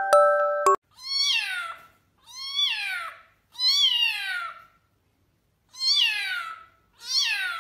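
Kitten meowing five times: high cries, each under a second long and falling in pitch, with a longer pause between the third and fourth. Chiming music cuts off just before the first meow.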